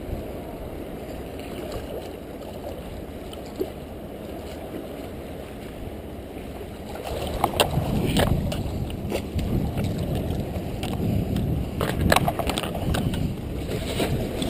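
Wind on the microphone and waves washing against jetty rocks. About seven seconds in it grows louder, with splashing and sharp knocks as a hooked fish is landed among the rocks.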